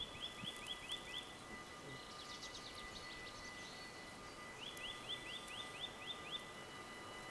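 Songbird singing in woodland: a short phrase of about eight quick, repeated downward-sliding notes, sung at the start and again about halfway through, with another bird's higher chirps in between. Faint outdoor hiss under it, with a thin steady whine.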